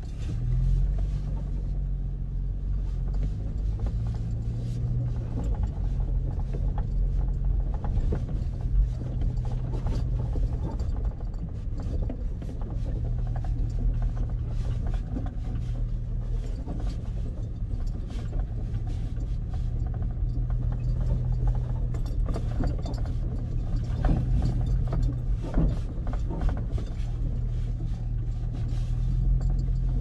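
Toyota FJ Cruiser's 4.0-litre V6 running steadily at low speed on a rough gravel track, heard from inside the cab, with a low rumble from the tyres and suspension and a few short knocks.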